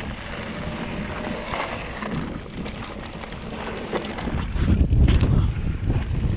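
Wind buffeting the microphone and tyres rolling over dirt as an electric mountain bike rides down a trail, with scattered clicks and rattles; the wind rumble grows much louder about four and a half seconds in as the bike picks up speed.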